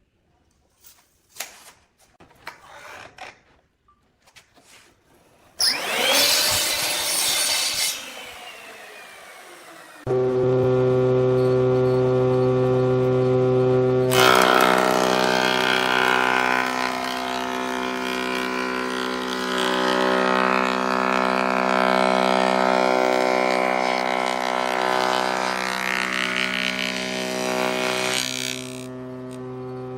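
Homemade table saw running with a steady motor hum from about ten seconds in. From about a third of the way through, a long cut through wood adds a loud rasping over the hum for some fourteen seconds, and the saw then runs on alone. Before it starts there are a few light handling clicks and a brief loud burst with a falling tone.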